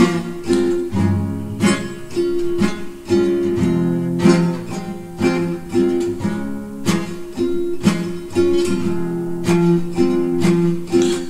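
Instrumental break in an Armenian bard song: guitar played in a steady rhythm over held notes, with no singing.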